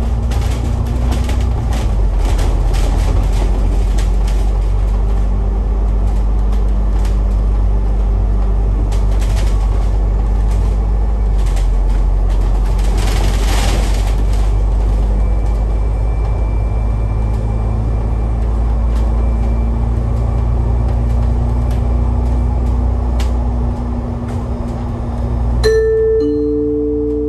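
Alexander Dennis Enviro500 double-decker bus cruising on an expressway, heard from the upper deck: a steady low engine and road drone with scattered clicks and rattles from the bodywork. Near the end a two-note chime sounds, a higher note then a lower one, and rings on.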